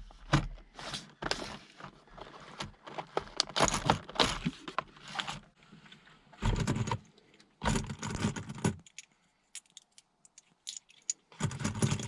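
Metal objects jangling and clicking while being handled, in several clusters of clatter with rustling between them and a brief lull near the end.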